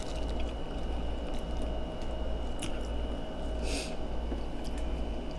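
Fingers peeling a boiled shrimp and picking through seafood, with small shell clicks and a short crackle about four seconds in, over a steady low hum.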